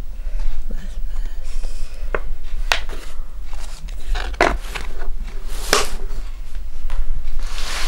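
A few sharp knocks and clinks as a glass oil jar, a small glass bowl and a carved stone pot are handled and set down on a floor mat, followed near the end by cloth rubbing against the stone.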